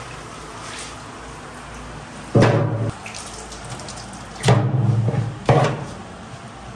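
Water splashing and sloshing in a large aluminium cooking pot as raw heads and trotters are washed and moved by hand, with three louder splashes spaced about a second or two apart.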